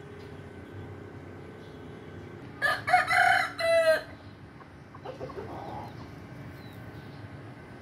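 Rooster crowing once: a loud cock-a-doodle-doo in three quick parts, lasting about a second and a half, starting a little under three seconds in. A fainter call follows about a second later.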